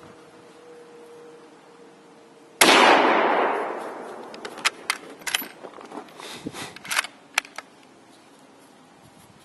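A single shot from a 1939 Japanese Type 99 Arisaka bolt-action rifle: one sharp report whose echo dies away over about a second and a half. A couple of seconds later comes a run of short metallic clicks as the rifle's bolt is worked.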